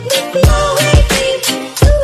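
Background music with a strong beat: heavy low thumps and sharp hits under a held melodic line.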